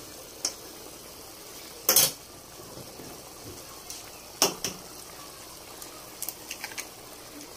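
A pot of sauce simmering and bubbling, with a few sharp taps of a utensil against the metal pot. Near the end, a cluster of small clicks as an egg is cracked open over the pot.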